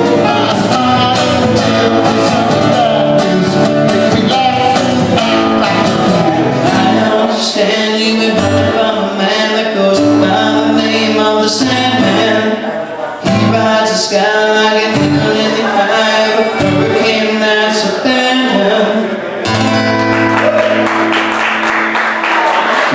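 A man singing to his own acoustic guitar. The song changes to a new passage near the end.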